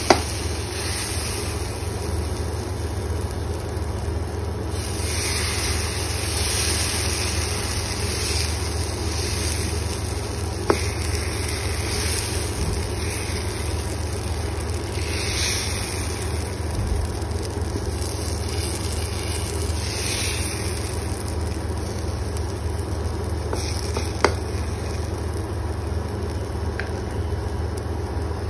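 Aata chilla batter sizzling in a lightly oiled nonstick pan while a ladle spreads it into a round, with a few swells of scraping and a few light taps of the ladle on the pan, over a steady low hum.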